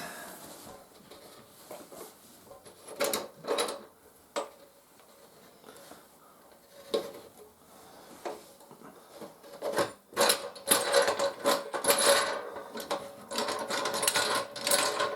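Cured resin bowl blank being worked out of its plastic mold: scattered knocks and clicks, then a dense run of scraping and crackling over the last five seconds.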